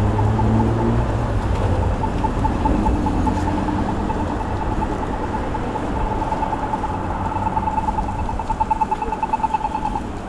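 Pedestrian crossing signal beeping rapidly on one high pitch over steady road traffic. The beeping grows louder and cuts off shortly before the end. A car engine passes in the first second.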